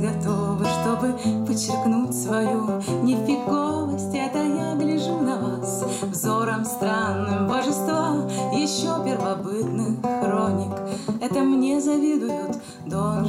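A woman singing a song to her own strummed acoustic guitar, with the bass notes moving under the chords.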